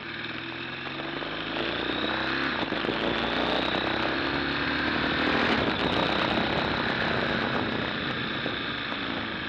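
BMW R1200 GSA's boxer-twin engine running as the motorcycle rides up a mountain road, mixed with heavy wind rush over the bike-mounted camera microphone. The engine note climbs in the first few seconds and the overall sound grows a little louder toward the middle.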